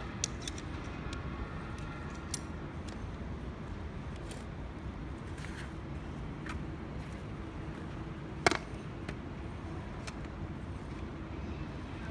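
Metal poles and plastic corner joints of a folding camping table clicking as it is put together: a few light clicks and one sharper knock about eight seconds in, over a steady low background rumble.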